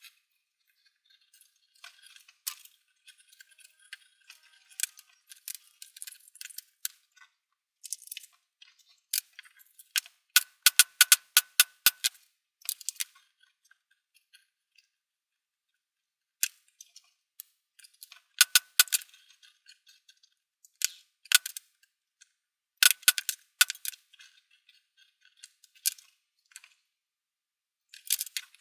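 Leatherworking hand tools knocking and clicking against a cutting board in irregular bursts of quick, sharp taps, with quieter handling of leather pieces between the bursts.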